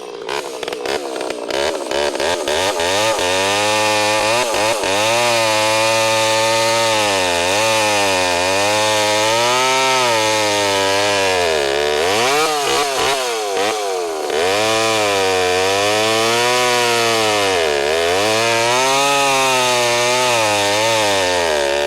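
Two-stroke chainsaw running hard while cutting into wood. Its pitch sags and recovers over and over as the chain bogs under load, with deeper drops twice. The chain is still cutting poorly: the sawdust coming out is too thin, a sign it needs proper sharpening.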